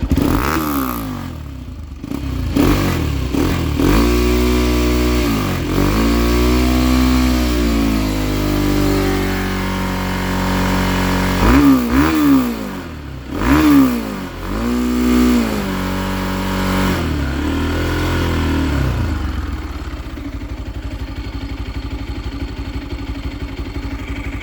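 Bajaj NS200's single-cylinder engine running through a KTM 390 Adventure silencer and being revved repeatedly. There is a long rise held for several seconds, then a few quick sharp blips, then the engine settles to a steady idle for the last few seconds.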